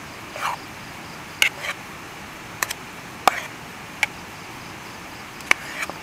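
A metal spoon knocking and scraping against a small nonstick camping pan while stiff bannock dough is mixed: irregular sharp clinks, some briefly ringing, about nine in six seconds.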